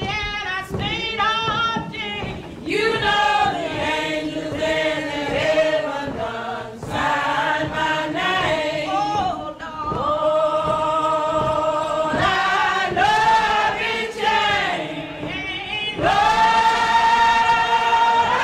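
Choir singing in a gospel style, with voices holding long notes and one note sustained near the end.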